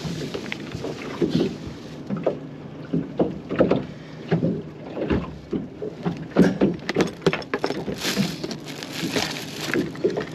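Small fibreglass fishing boat rocking on the water, with irregular knocks, clicks and rustles as fishing tackle and a soft-plastic lure are handled on the deck beside an open tackle box.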